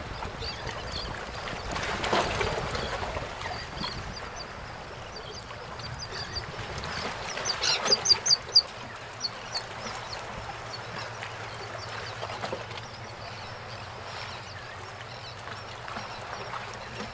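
Water lapping and splashing around a small boat on open bay water, with birds calling now and then and a quick run of sharp, loud calls about eight seconds in.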